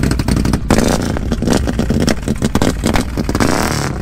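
Quad bike (ATV) engine running and revved several times through a loud exhaust, with a rising rev near the end.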